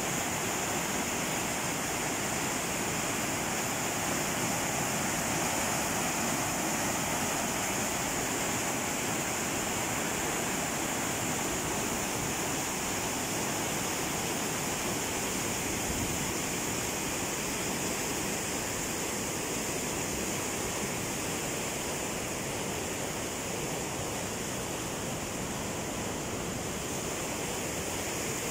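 Swollen, muddy river in flood pouring over a low weir and churning in white water: a steady, even rush of water.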